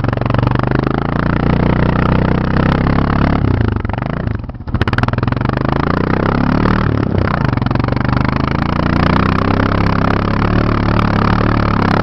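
Four-wheeler (ATV) engine running hard. Its pitch dips and climbs back twice, about four and a half seconds in and again around seven seconds.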